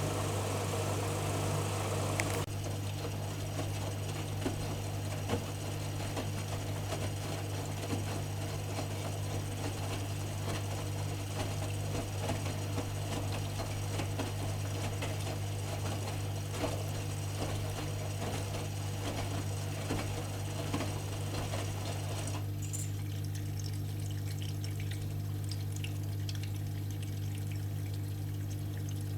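AEG ÖKO-Lavamat washing machine running mid-cycle: a steady low hum with water splashing and gurgling inside it and small ticks over the top. The water noise thins out abruptly about two seconds in, and again toward the end.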